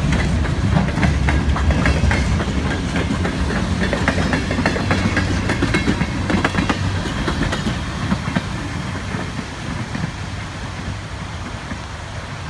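Freight cars rolling past, their steel wheels clicking over the rail joints above a low rumble. The sound fades over the last few seconds as the end of the train goes by.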